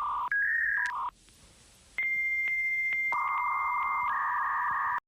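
Electronic beeping tones, like keypad dialing tones: a few short held beeps at different pitches, a pause, then a long steady tone that is joined by lower tones for the last second or two before cutting off sharply.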